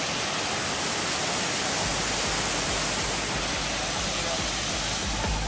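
Steady rushing wind noise on a ride camera's microphone. About two seconds in, electronic dance music fades in underneath, its low beat becoming clear near the end.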